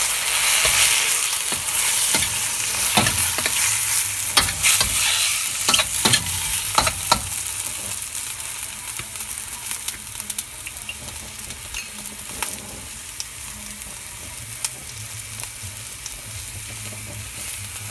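Fresh squid sizzling in hot oil with garlic, ginger, onion and chili in a stainless steel wok, with a spatula scraping and knocking against the pan as it is stirred. About halfway through the stirring stops and the sizzle settles into a quieter, steady frying hiss.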